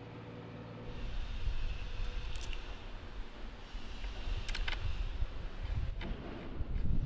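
Brass threaded fittings of a pressure-washer lance clinking and clicking together in the hands as they are unscrewed and handled: a couple of sharp metallic clicks, then a quick cluster of them about halfway through. Underneath runs a low, uneven rumble.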